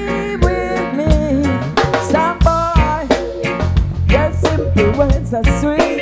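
Live reggae band playing an instrumental passage: electric guitar over a bass line and drum kit, with a steady beat.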